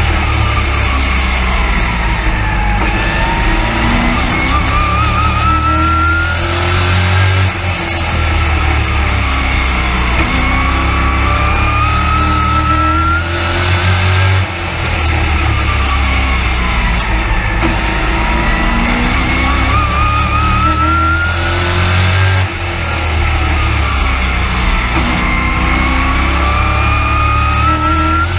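Race truck's engine heard from inside the cab, loud and continuous, its pitch rising along the straights and falling as the throttle lifts for each turn, repeating about every seven seconds around the short oval.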